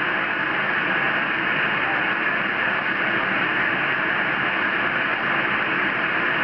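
Steady radio static hiss from a transceiver on CB channel 38 lower sideband, with no station coming through, just open band noise.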